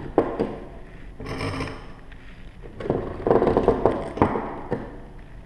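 Three-strand polypropylene rope being hauled through the sheaves of a triple pulley block and dragged across a wooden table: two spells of rustling, scraping rope noise, with a few sharp knocks.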